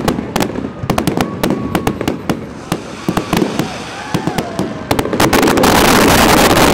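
Fireworks display: aerial shells going off in quick succession with sharp bangs, with crowd voices between them. About five seconds in the bursts merge into a dense, continuous barrage.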